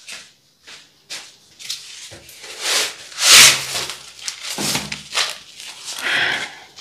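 Cardboard boxes of floor tiles scraping and rubbing against each other as they are lifted off a stack and carried, in a few separate bursts, the loudest about three and a half seconds in.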